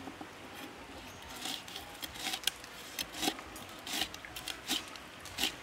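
Kitchen knife slicing fresh red chilies on a wooden chopping block. About eight irregular knife taps on the wood begin about a second and a half in, coming roughly every half second.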